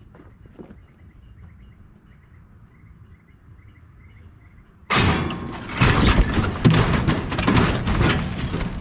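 A load of saw logs dumping off the side of a side loader log truck: about five seconds in, a sudden loud tumble of heavy wooden thuds and knocks as the logs roll off the bunks, strike each other and land on the dirt.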